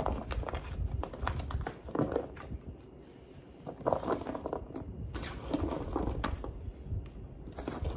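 Chopped potato, carrot and celery pieces being dropped and pushed by hand into a glass baking dish, with irregular light knocks and clatter against the glass and the plastic container.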